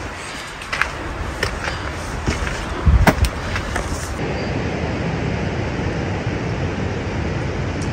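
Footsteps scuffing and clicking on a rough stone path, with a heavy low thump just after three seconds. About four seconds in, the steps give way to a steady rushing noise.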